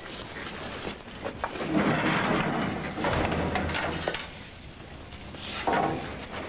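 A barred metal jail-cell door being unlocked and opened: keys and metal clinking and rattling in several short spells.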